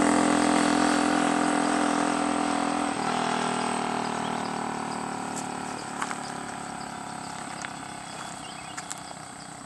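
A motor vehicle driving away down the road, its engine hum fading steadily, with a shift in pitch about three seconds in.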